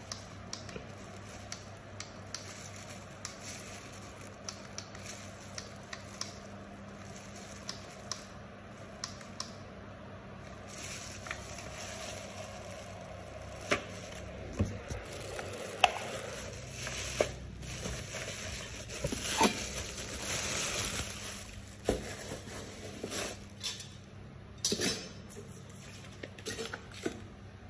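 Handling noises: scattered clicks, light knocks and rustling as objects and packaging are moved about, getting busier after about eleven seconds.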